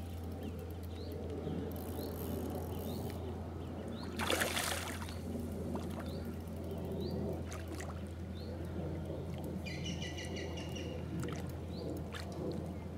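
A hooked fish splashing at the surface as it is played on a rod, with one louder splash about four seconds in. A small bird chirps again and again in the background.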